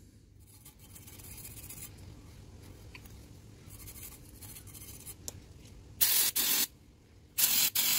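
Aerosol brake cleaner sprayed onto a brake caliper bracket to clean it: two short hissing bursts, each about half a second, a little over a second apart near the end.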